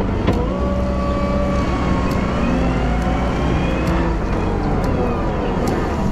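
Wheel loader running steadily under work, a low engine drone with whining tones that climb and then fall back in pitch midway, and a few light ticks.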